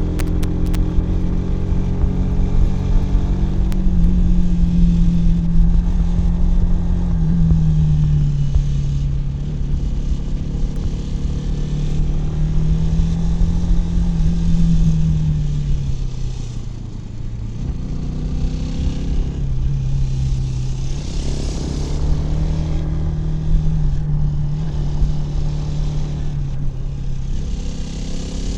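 Kawasaki W175's single-cylinder engine pulling a motorcycle along while riding, its pitch rising and falling with the throttle and stepping through gear changes. It eases off briefly a little past the middle, then picks up again.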